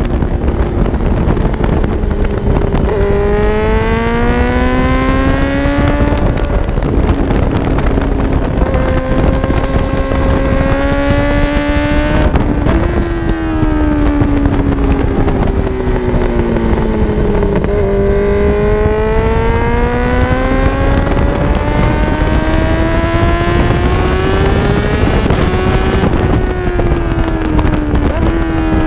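Suzuki GSX-R750's inline-four engine at full throttle on track: the exhaust note climbs in pitch through the gears, with short breaks at the upshifts, and drops away as the bike slows for corners, over steady wind rush.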